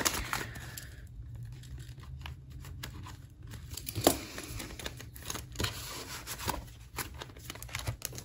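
Paper money and cash envelopes being handled: irregular rustling and crinkling, with a sharper rustle about four seconds in.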